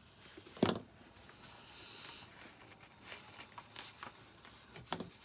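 Handling of thin decoupage paper on a worktable: a sharp tap about half a second in, then soft rustling and a few light taps while a water pen is run along the paper to mark a line for tearing.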